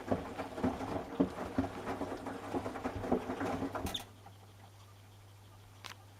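Fabric trainers tumbling in a Samsung washing machine drum during the wash: a fast, irregular knocking and rattling as they are thrown around. The drum stops about four seconds in, leaving only a faint low hum.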